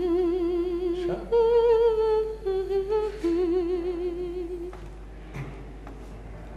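A man's voice humming a slow tune with no words: a few long held notes with vibrato, fading out about two-thirds of the way through.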